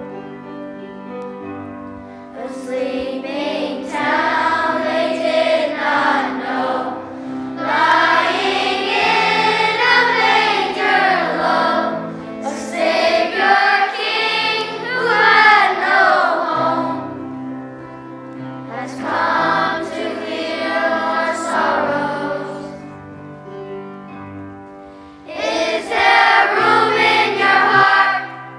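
Children's choir singing a song in phrases, with sustained low instrumental accompaniment that carries on in the gaps between the sung lines.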